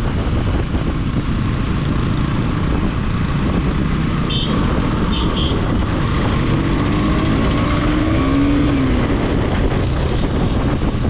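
Steady rushing road and wind noise from a vehicle on the move. Two short high beeps come about a second apart near the middle.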